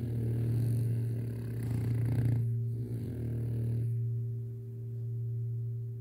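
French Bulldog snoring in its sleep: two rough snoring breaths over the first four seconds or so. Under them runs a low steady singing-bowl tone.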